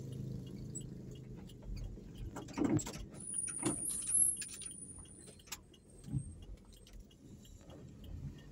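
Low rumble of a moving vehicle with scattered light rattles and clicks. A thin high whistle sounds for about two seconds near the middle.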